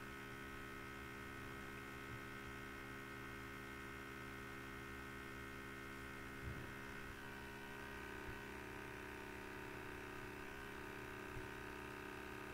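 Steady low electrical mains hum and buzz on the recording, with a few faint brief knocks about halfway through and near the end.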